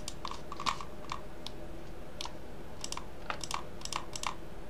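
Computer keyboard and mouse clicking: about a dozen short, sharp clicks at uneven intervals, as Shift is held and faces are clicked to select them.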